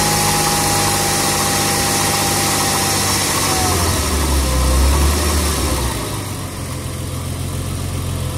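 1999 Porsche Boxster 2.5 flat-six engine running, with a steady high whine over it that falls in pitch and fades about three and a half seconds in. Around six seconds in, the engine sound drops and becomes quieter.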